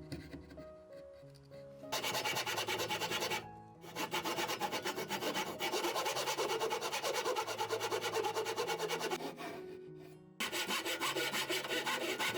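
Fast, even back-and-forth strokes of a hand tool working wood, in three runs with short pauses about a third of the way in and near the end, over quiet background music.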